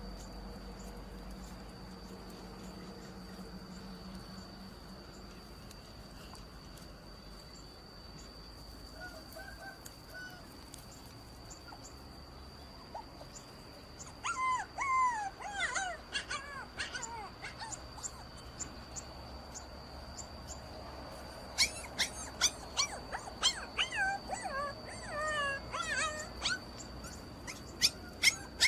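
A wounded puppy crying in distress: bouts of short, high-pitched whimpers and yelps that fall in pitch. One bout starts about halfway through and a second, longer one comes near the end.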